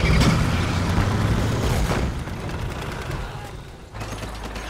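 Film battle sound mix: explosions and gunfire over the rumble of advancing tanks. It is loudest in the first two seconds and fades, then a steadier, lower rumble starts abruptly about four seconds in.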